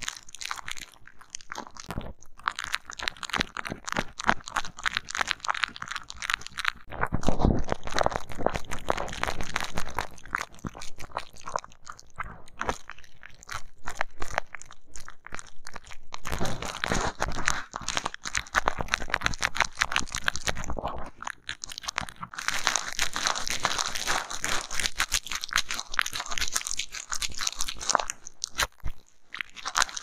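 Close-miked crunching and crackling from a thin stick pressing and scraping on small round props on a bubble-wrap sheet: a dense run of rapid crackles, heavier in a few stretches.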